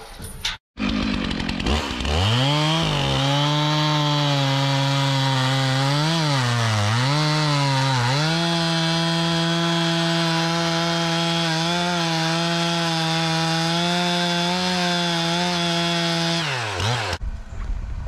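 Chainsaw revving up and cutting through a log. Its pitch dips twice partway through, holds steady, then falls away near the end.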